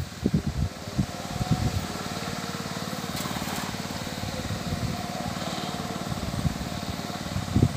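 A small engine running steadily, a low drone at an even pitch.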